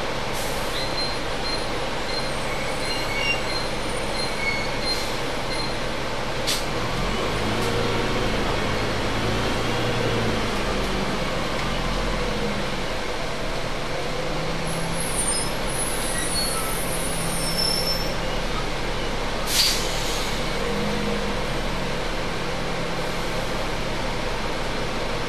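A double-decker bus running on the road, heard from near its axle: a steady rumble of engine and road noise. The engine note rises and falls under changing load, and there is one short sharp burst about twenty seconds in.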